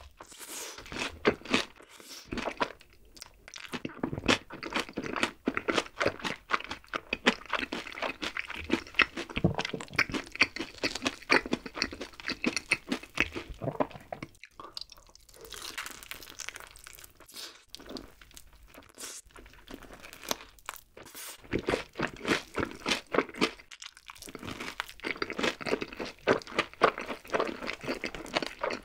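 Close-miked crunching and chewing of sauce-coated Korean fried chicken, a dense run of crackly bites with a couple of short pauses.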